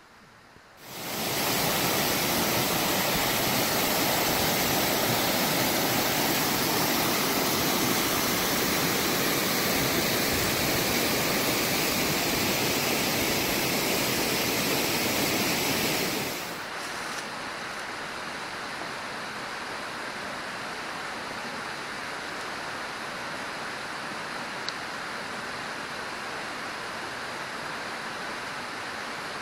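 Waterfall on Cedar Run Creek, a steady rush of water pouring over a rock ledge, coming in loud about a second in. After about sixteen seconds it drops suddenly to a quieter, even rush of the creek sliding down a bare rock cascade.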